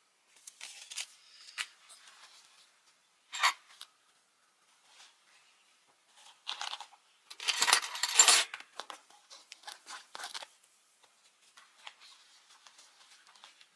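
Close, small handling sounds of objects at a desk: scattered clicks and rustling, a sharp clack about three and a half seconds in, and a louder rustle lasting about a second around eight seconds in.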